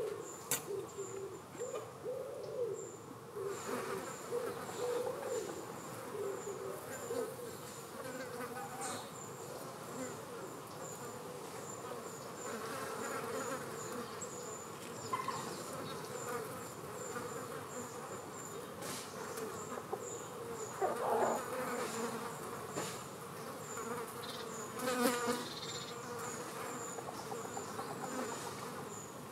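Common green bottle flies buzzing as they fly in and around a crowded cluster, the wing hum wavering in pitch and swelling as flies pass close, louder for a moment twice in the second half. A faint high ticking repeats about twice a second behind it.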